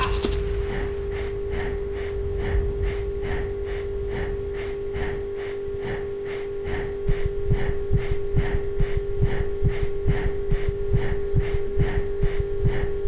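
Eerie horror-soundtrack effect: a steady held tone under a fast, even pulsing of about three beats a second, with low thumps coming in more strongly about halfway through.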